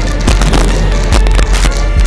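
Loud music with a heavy bass and a fast, driving beat.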